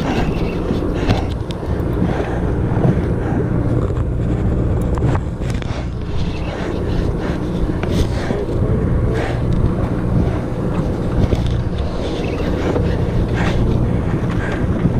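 Steady low drone of a sportfishing boat's engine, with wind rushing on the microphone and a few scattered short clicks.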